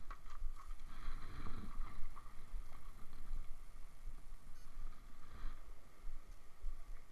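Low rumbling and soft knocks of a camera being handled and moved about, with light rustling.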